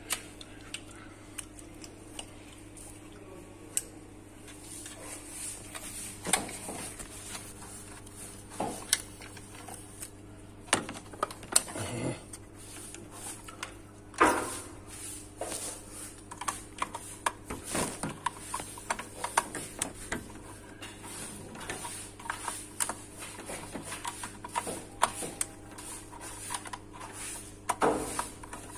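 Irregular light clicks and taps from hands and tools handling an electrical distribution board, with a screwdriver working at the digital meter's terminals near the end, over a steady low hum.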